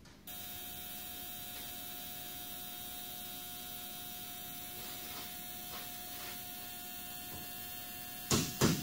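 An ultrasonic parts cleaner is switched on a moment in and runs with a steady electric hum and high whine, cleaning a load of drum-brake parts. A few sharp knocks come near the end.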